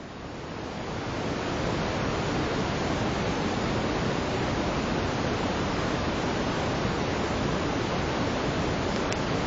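Steady rushing water noise that swells up over the first second or so, then holds level, with no distinct events in it.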